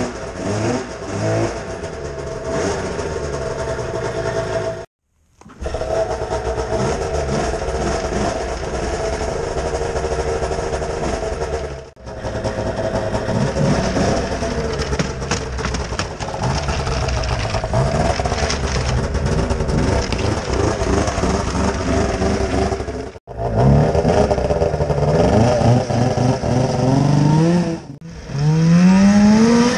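Arctic Cat ZL600 snowmobile's two-stroke twin engine running smoky just after a cold start, with throttle blips that send the revs up in short rising glides, strongest near the end. The sound breaks off abruptly a few times.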